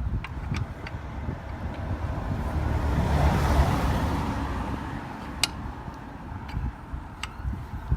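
A passing car on the road, its noise swelling to a peak about halfway through and then fading, over steady background traffic rumble. A few sharp clicks come through, one near the start and others later on.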